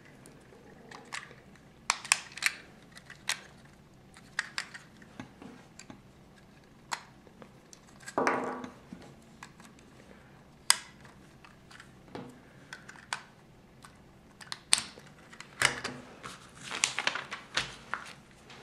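Lego plastic parts being handled and fitted: rubber tyres pressed onto wheel rims and wheels snapped onto the model, giving scattered sharp plastic clicks, with a longer scuffing sound about 8 seconds in and a busy run of clicks and rustling near the end.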